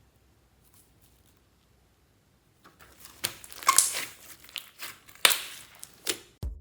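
Near silence at first, then slime being squeezed and pressed, giving irregular crackling, crinkly popping with a few louder bursts. A backing track with a beat comes in right at the end.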